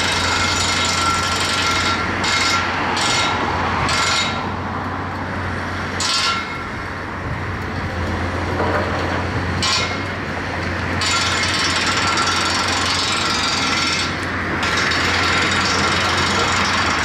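Komatsu PC228US LC excavator at work: its diesel engine runs with a steady low hum under hydraulic noise, while the bucket scrapes and clatters through stony ground, with sharp clanks several times in the first few seconds and again about ten seconds in.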